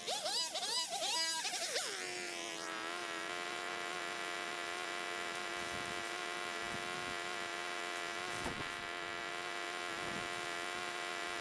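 Small two-stroke engine of a handheld gas trimmer revving up and down in quick bursts for about two seconds, then running steadily at a constant speed.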